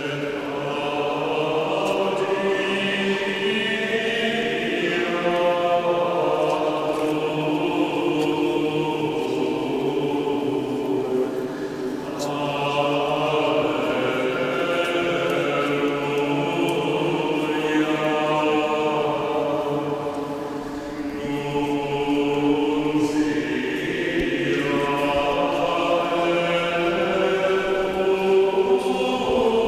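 Male vocal ensemble singing chant a cappella, in long held phrases with two short breaths between them.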